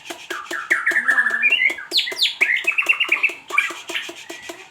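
White-rumped shama (murai batu) singing a fast, varied song of whistles, sweeping notes and quick repeated trills, used as a lure song to set other shamas singing. A steady run of sharp clicks goes on under the song.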